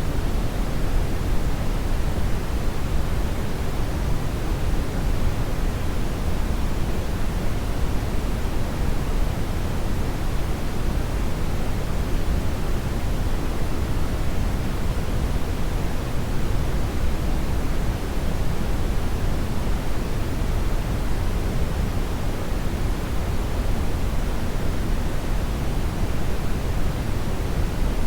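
Hair dryer running steadily: an even, unbroken rush of blowing air, heaviest in the low end.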